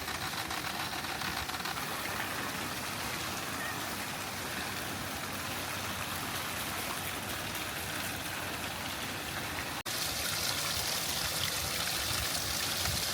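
Running water with a steady rush and no distinct events. About ten seconds in there is an abrupt cut, and the water noise after it is hissier and a little louder.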